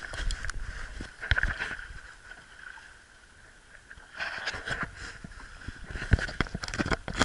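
Kayak paddle strokes splashing into the sea beside the hull, with water slapping against the kayak, in bursts with a quieter pause of a second or so around the middle. Several sharp knocks and splashes come close together near the end.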